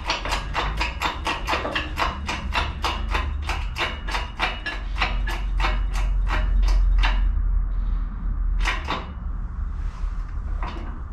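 Hydraulic shop press pumping in quick, even strokes, about three a second, as the ram presses a new bearing onto a milling-machine spindle shaft. The strokes slow slightly and stop about seven seconds in, with one more stroke near the end, over a steady low hum.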